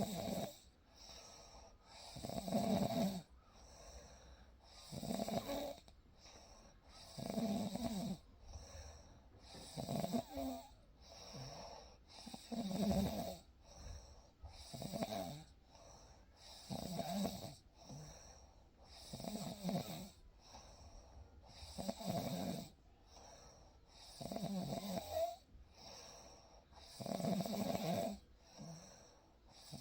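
A person snoring in deep sleep, one snore roughly every two and a half seconds in a steady rhythm.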